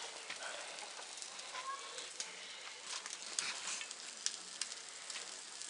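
Pork skewers sizzling over hot coals: a steady hiss broken by scattered sharp crackles and pops.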